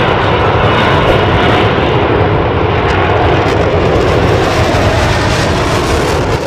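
Jet aircraft engine sound effect for a toy fighter jet: a loud, steady rushing noise that starts and cuts off abruptly.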